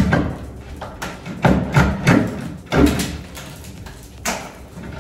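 Claw hammer striking a wall to break it open: about six heavy blows, unevenly spaced, the last one a little after the four-second mark.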